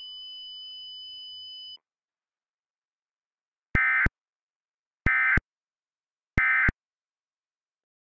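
A steady high electronic alert tone cuts off about two seconds in. After a pause come three short buzzing bursts of Emergency Alert System digital data, about 1.3 seconds apart: the end-of-message code that closes an EAS alert.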